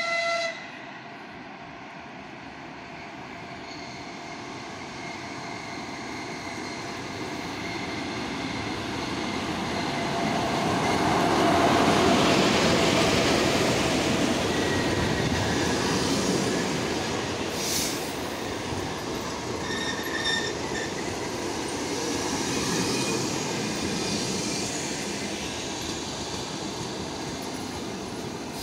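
Electric passenger locomotive ChS4 sounds a short horn blast, then the train's rumble grows as it approaches and passes at speed, loudest about twelve seconds in. The passenger coaches keep rolling past with wheels clattering over rail joints and some wheel squeal.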